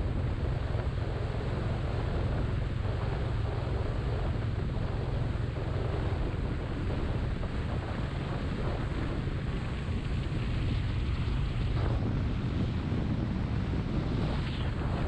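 Wind rushing over the microphone of a Royal Enfield Meteor 350 motorcycle on the move, with the single-cylinder engine and road noise running steadily underneath as a heavy low rumble.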